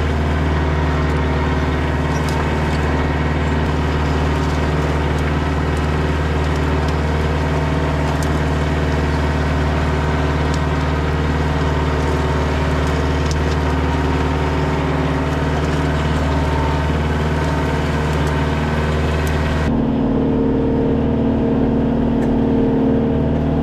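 Kioti DK40se tractor's diesel engine running steadily while the tractor pulls a landscape rake. About twenty seconds in the sound turns duller, with the high end cut away, as it is heard from inside the tractor's closed cab.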